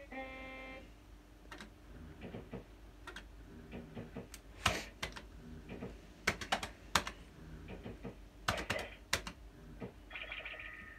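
QPS Yabba Dabba Dough fruit machine: a short electronic tone, then a scatter of sharp clicks and clunks from its buttons and reels as a game is played, with more electronic beeps about ten seconds in.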